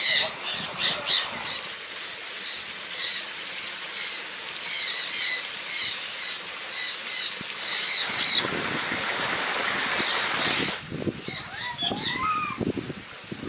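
Many small parrot-type birds chirping in short, repeated high calls, with a rushing hiss for about two seconds past the middle and a few lower, gliding calls near the end.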